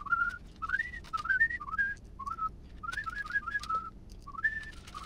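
A person whistling a tune in short notes, many of them sliding up into the note, with light clicks of plastic parts being handled.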